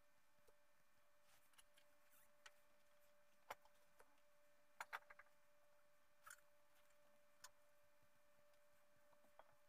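Near silence: a faint steady hum with a few soft, scattered clicks, one cluster of three near the middle.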